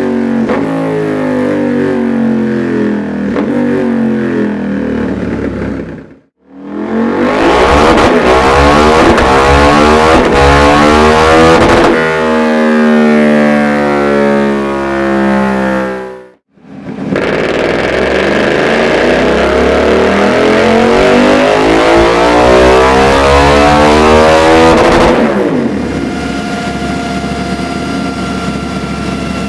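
KTM 790 Duke's parallel-twin engine, breathing through a Dominator aftermarket exhaust, is pulled up through the revs on a dyno in long runs of rising pitch. The sound breaks off suddenly twice, about six and sixteen seconds in, then drops back to a quieter, steady running note near the end.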